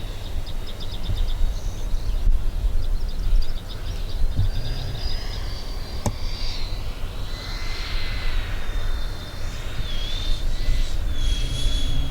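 A 3D-printed RC model airplane in flight, its motor a thin high whine that wavers, rises and dips in pitch as it flies around. A steady low rumble lies under it, with a single sharp click about six seconds in.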